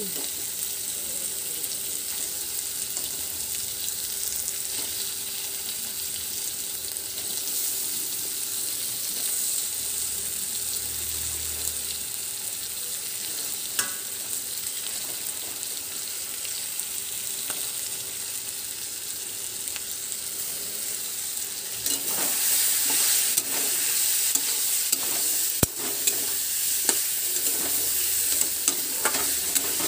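Spiced curry paste with paneer and potatoes sizzling in a steel kadai over a gas flame. About three quarters of the way through, a steel spatula starts stirring and scraping through it, louder, with sharp clicks of metal on the pan.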